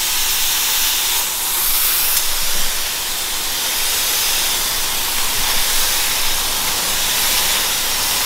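Gravity-feed compressed-air spray gun hissing steadily as it sprays paint onto a truck's engine-bay inner fender, briefly louder about two seconds in.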